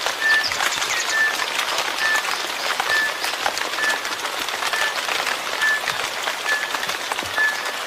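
Steady rain falling on a surface, a dense patter of drops, with a short high note that repeats a little more than once a second.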